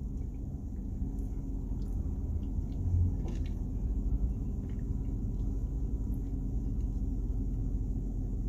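Steady low rumble inside a car cabin, with a few faint clicks from a plastic fork and container.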